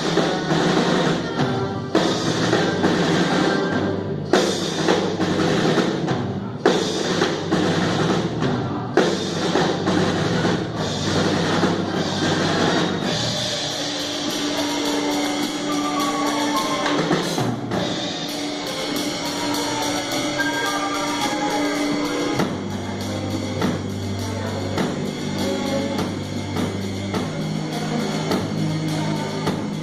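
A band playing music with a drum kit keeping a steady beat over bass and held pitched instruments; the arrangement shifts about halfway through and again near the end.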